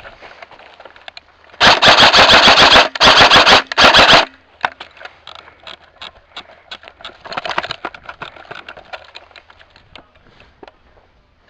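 Airsoft gun firing three rapid full-auto bursts close to the microphone about two seconds in, the last one short, then scattered fainter cracks of shots.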